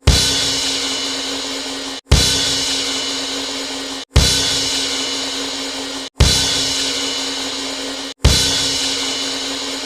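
A drum-kit hit with a crash cymbal, played as a repeated sound effect five times, about every two seconds. Each hit opens with a low thump, the cymbal rings on, and it is cut off abruptly just before the next hit.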